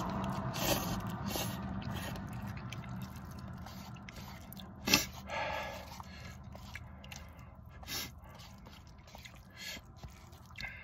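A person eating spicy instant cup noodles with chopsticks: slurping and chewing, with the chopsticks scraping and tapping in the cup. There is one sharper click about five seconds in.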